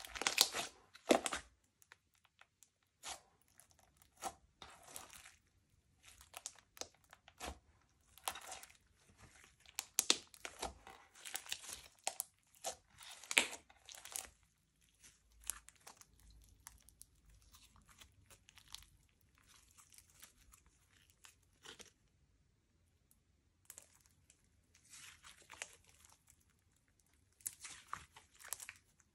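Slime being squeezed, stretched and folded by hand, crackling and popping as air pockets burst. It comes in irregular bursts with short pauses, quieter for a while in the middle.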